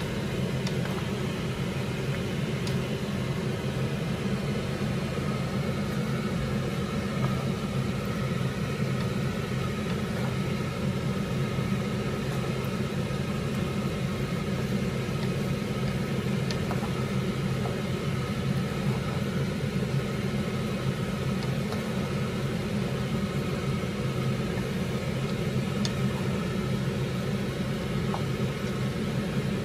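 Steady low machine hum, with a few faint clicks of a wooden spoon against the pan as spaghetti is tossed.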